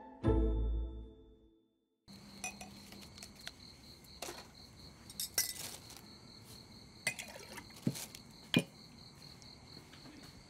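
Glasses and dishes clinking now and then as a drink-stall counter is cleared, over the steady pulsing chirp of crickets. It opens with the tail of a plucked-string music cue and a short low boom, then a moment of silence.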